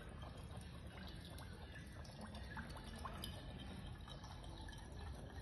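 Wine running faintly from a wooden barrel's brass tap through a filler spout into a glass bottle, a low trickle with a few small ticks.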